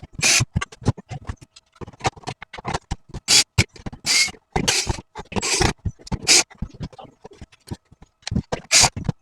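Irregular clicks, knocks and short scraping noises, as of hands working on small plastic parts.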